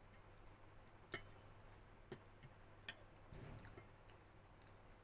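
Faint, scattered clicks of a metal fork tapping a ceramic plate while twirling pasta. The sharpest tap comes about a second in, and a few lighter ones follow.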